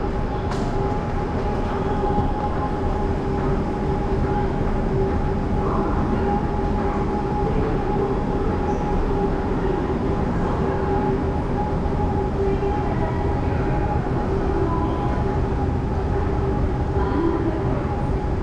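Subway train running, a steady rumble under a constant hum.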